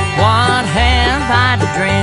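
Bluegrass band playing an instrumental break: a lead melody that slides and bends between notes over banjo picking and a steady bass line.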